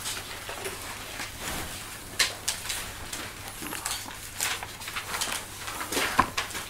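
Scattered rustles and light knocks of paper and books being handled, as in pages being turned, over a steady low electrical hum.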